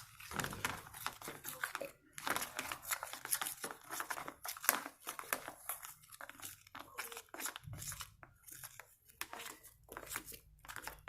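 Shaving foam and white school glue being stirred together into slime: an irregular run of short, hissy, squishy strokes.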